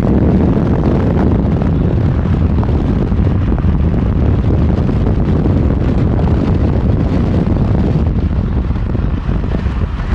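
Steady road and wind noise of a car moving at highway speed, heard from inside the car, easing a little near the end.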